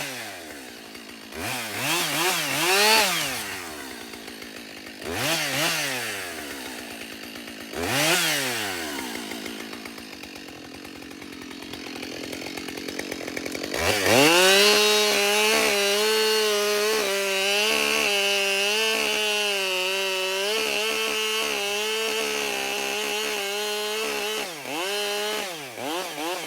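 Husqvarna 572XP two-stroke chainsaw: three short revs that rise and fall back, then lower running for a few seconds, then held at high revs for about ten seconds as it cuts through a log, the pitch wavering slightly under load, with a brief drop and rise near the end.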